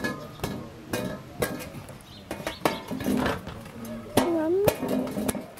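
Irregular sharp knocks and taps in a large steel plate as freshly baked baati dough balls, just out of the embers, are beaten clean of ash.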